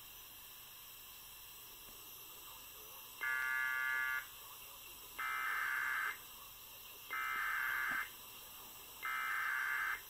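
Emergency Alert System SAME header: four roughly one-second bursts of harsh digital data tones about a second apart, played from a computer. They are the coded start of a National Weather Service tornado warning (TOR).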